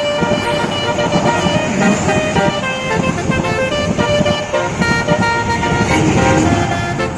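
Telolet horn, a multi-tone musical horn, playing a quick tune of short held notes over a low rumble.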